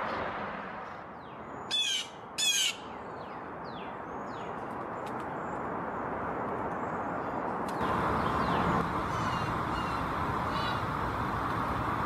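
Blue jay calling: two loud, harsh calls about half a second apart roughly two seconds in, followed by fainter scattered bird calls.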